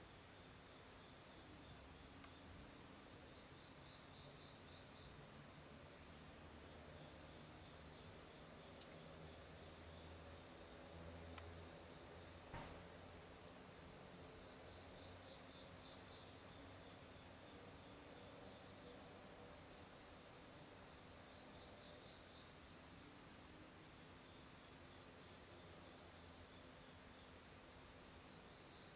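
Faint chorus of crickets singing: one steady high trill with another, pulsing song just below it.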